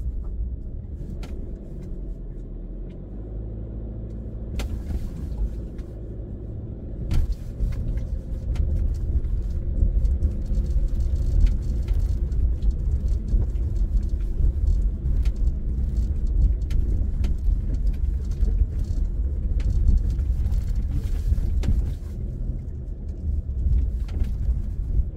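Subaru XV driving up a gravel and cobbled mountain track, heard from inside the cabin: a low engine and tyre rumble with stones clicking and knocking under the tyres. The rumble gets louder about seven seconds in.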